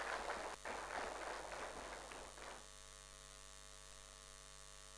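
Audience applauding, dying away a little past halfway, leaving only a steady electrical hum.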